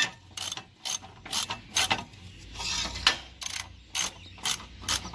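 Hand-tool work on a mower deck's steel hardware: a run of sharp metallic clicks, about two a second, with a short pause a little past two seconds in.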